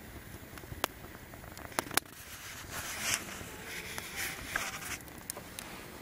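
Small wood campfire crackling, with sharp pops about a second in and twice near two seconds, and a stretch of hissing in the middle.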